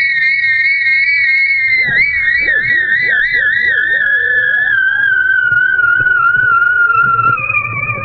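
A high, pure whistle from the kite rig singing in the wind. It wavers and slides slowly lower in pitch as the wind eases, then sweeps back up at the very end, with fainter warbling tones underneath.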